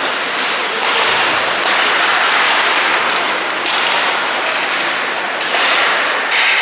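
Ice hockey game sound at the rink: a steady hiss of skate blades on the ice, with short knocks of sticks, puck and boards, the strongest near the end.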